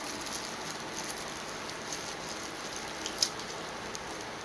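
Steady hiss of an electric room fan, with small clicks and one sharp snap about three seconds in from plastic-gloved hands picking through a seafood boil of crawfish and shrimp.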